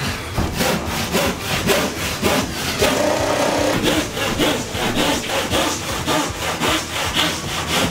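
Hand saw cutting along a sheet of plasterboard with quick, even back-and-forth rasping strokes, the blade held at a shallow angle.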